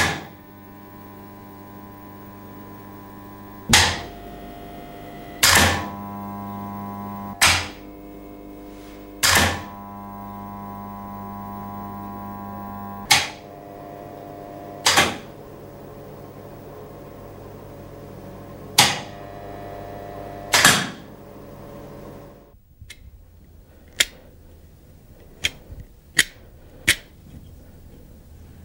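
A steady electrical hum with many overtones, broken by about nine loud sharp clicks roughly two seconds apart, and the hum's tone shifts at each click. The hum stops about 22 seconds in, leaving a few lighter clicks.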